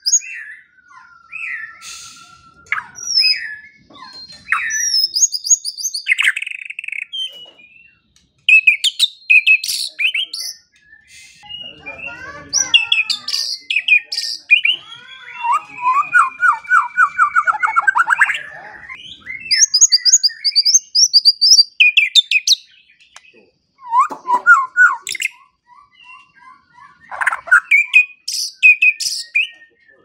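White-rumped shama singing a long, varied song of clear whistled phrases, pitch glides, fast trills and rapid repeated chattering notes, with short pauses between phrases.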